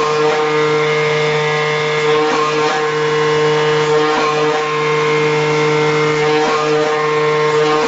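CNC flatbed cutting machine running as its tool head cuts a vinyl coil mat: a steady hum at one unchanging pitch, with a few faint clicks.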